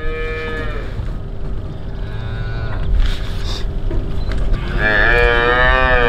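Young Holstein dairy calves mooing: a short call at the start, a fainter one about two seconds in, and a long, loud call near the end.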